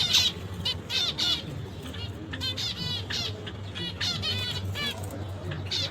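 Budgerigars chattering: many short, high chirps in quick runs, over a low steady hum.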